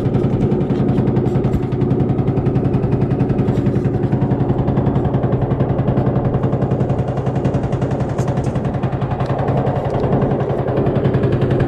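River boat's engine running steadily under way, a loud, fast and even chugging.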